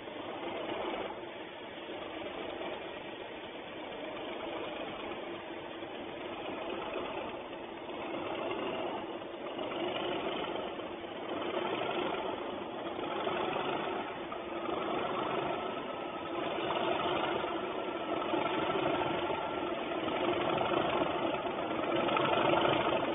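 Class 37 diesel-electric locomotives working under power, their English Electric V12 diesel engines growing steadily louder as they draw nearer, with a pulsing rise and fall in level.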